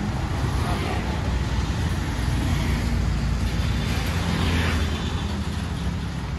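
Street traffic: vehicle engines running and passing as a steady rumble.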